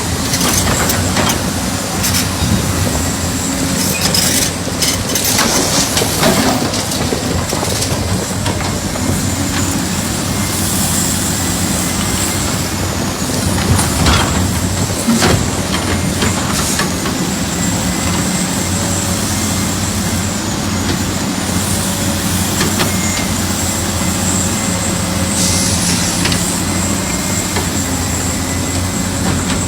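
Radio-controlled model excavator working: a steady motor hum with a thin high whine that dips briefly now and then, and scattered knocks and scrapes, the loudest about fourteen seconds in.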